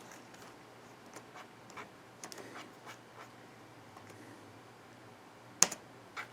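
Scattered light clicks of computer keys being pressed at an irregular pace, with one sharper click about five and a half seconds in.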